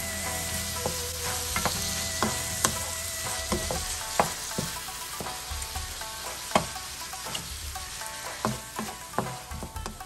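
Shrimp, onion and tomato sizzling in a nonstick frying pan while a wooden spatula stirs them, with frequent clicks and scrapes of the spatula against the pan, coming faster in the second half.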